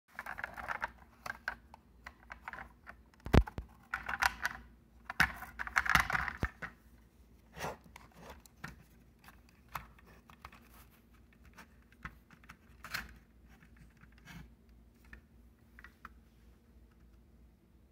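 Irregular clicks, taps and rustles of a toy mail truck being handled and turned over in the hand, busiest in the first seven seconds and sparser after that.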